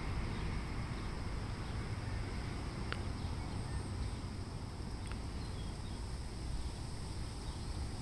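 Steady low outdoor background rumble, with two faint sharp clicks about three and five seconds in and a few faint high chirps.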